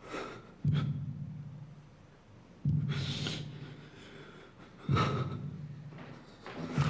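Heavy, distressed breathing: a sharp intake of breath followed by a low, voiced exhale, repeating about every two seconds, four times.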